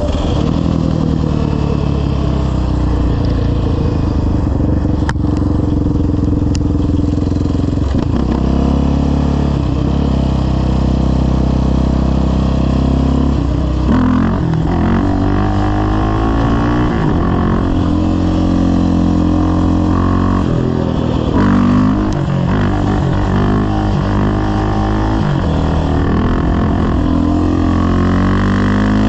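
Yamaha Raptor 700R's single-cylinder engine running through a full CT Racing aftermarket exhaust and FCI intake while the quad is ridden on pavement. The engine note holds steady at first, then from about halfway its pitch rises and falls again and again as the throttle is worked.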